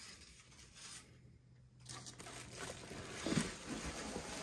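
Clear plastic bag crinkling and rustling against a cardboard box as a wrapped oil-filled radiator heater is lifted out. The rustling is faint at first, breaks off briefly, then grows busier from about two seconds in, with a few soft knocks.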